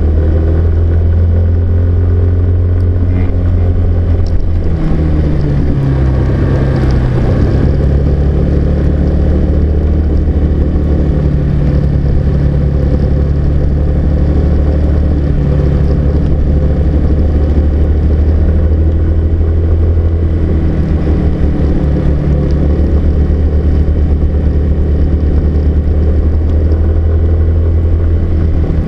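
Car engine and road noise picked up by a dash camera inside the cabin: a steady low drone whose engine note shifts about four to eight seconds in, then holds steady.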